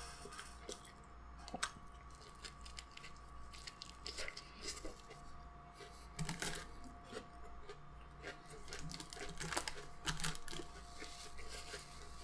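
Close-up chewing and wet mouth sounds of a person eating a soft KFC taco, with scattered small crunches, clicks and crinkles of its paper wrapper.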